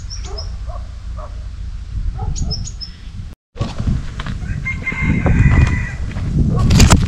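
A rooster crows once, a held call of about a second and a half, over a steady rumble of wind on the microphone. Small birds chirp in the first few seconds, and a loud rustle comes near the end.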